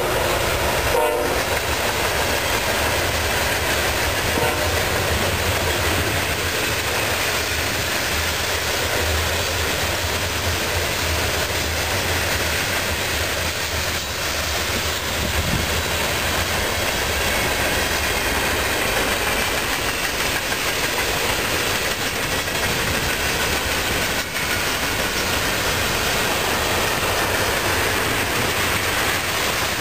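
Norfolk Southern freight train passing close by, led by GE diesel locomotives. A horn chord sounds briefly and stops about a second in. After that comes the steady rolling and clatter of hopper cars' wheels over the rail joints.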